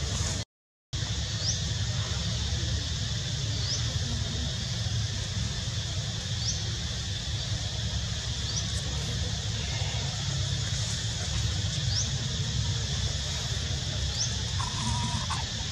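Outdoor ambience: a steady high insect hiss over a low rumble, with a short, thin rising chirp repeating about every two seconds. The sound cuts out completely for a moment about half a second in.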